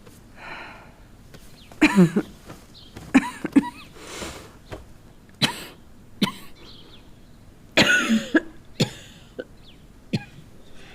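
A woman coughing repeatedly in short fits of one to a few coughs, with breaths between: a persistent cough that the physician takes for consumption that has settled in the lungs.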